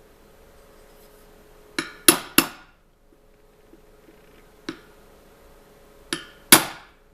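Hammer tapping a 27 mm socket to drive a new oil seal into a manual gearbox housing: sharp metallic blows, three about two seconds in, a light one near the middle and two more near the end, with a pause between them to check that the seal is going in straight.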